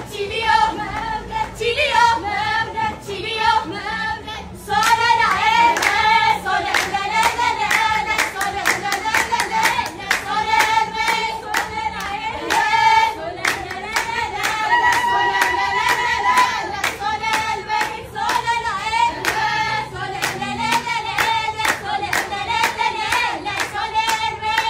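A group of women singing an Ashenda song together. From about five seconds in, hand claps keep a steady beat under the singing.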